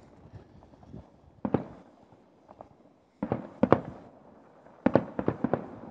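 Distant aerial fireworks bursting: a single bang about a second and a half in, then two clusters of rapid bangs, one about halfway through and one near the end, each dying away quickly.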